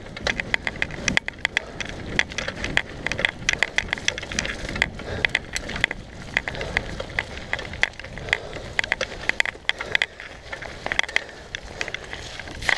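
Mountain bike riding fast over a rough dirt trail: dense, irregular clicking and rattling from the bike over the bumps, with a low rumble of the tyres on the ground.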